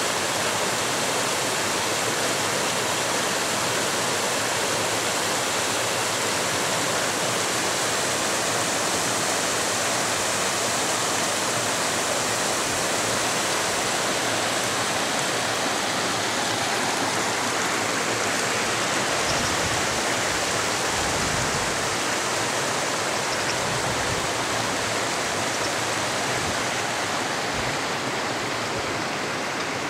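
Creek water rushing steadily over rocks.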